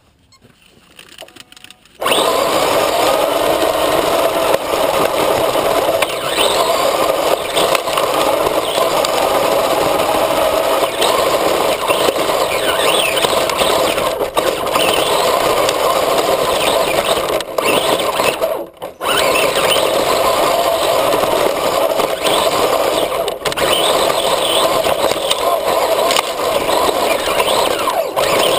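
On-board sound of a radio-controlled 4x4 truck driving over gravel: its motor and drivetrain start running about two seconds in and keep going steadily, cutting out briefly about two-thirds of the way through.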